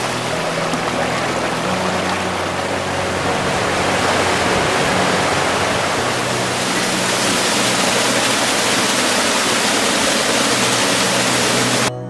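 Small mountain creek tumbling over rocks in little waterfalls: a steady rush of falling water that cuts off abruptly near the end.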